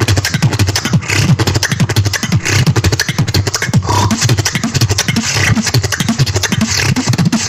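Beatboxing: a fast, dense beat of sharp vocal percussion hits over repeated deep, falling bass sounds.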